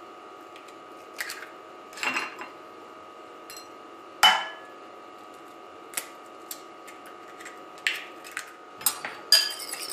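Raw chicken eggs cracked one by one against the rim of a glass bowl: a series of separate sharp taps and knocks, the loudest about four seconds in. Near the end a fork starts clinking quickly against the glass, beating the eggs.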